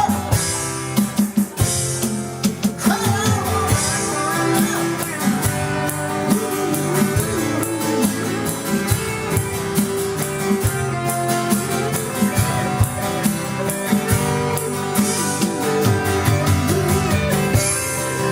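Live rock band playing an instrumental break in a ballad, guitar to the fore over bass and drum kit.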